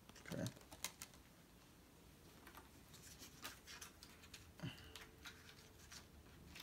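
Quiet handling of a plastic Blu-ray case and its paper inserts: a soft knock and a few clicks about half a second in, scattered light clicks through the middle, and another soft knock just past the middle.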